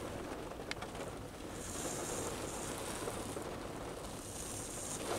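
Quiet, steady background noise with a faint high hiss that comes and goes, and one light click less than a second in.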